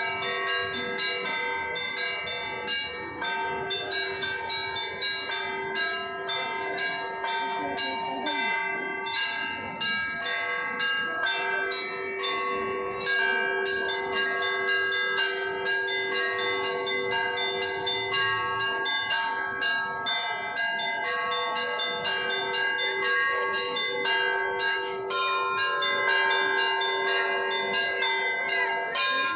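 A set of Russian Orthodox church bells played by a bell ringer. Quick, overlapping strikes on the smaller bells ring out over the lasting hum of a lower bell.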